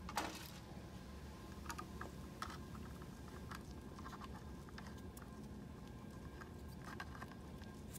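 Faint scattered light clicks and scrapes of a hand nut driver turning the hex standoffs beside the DVI connector of a print head's driver board, over a steady low hum.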